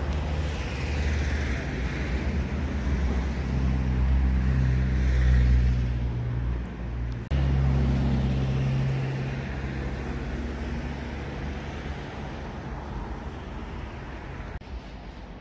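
Road traffic going by, a deep rumble with a low engine hum that swells and fades; the sound breaks off abruptly about seven seconds in and picks up again.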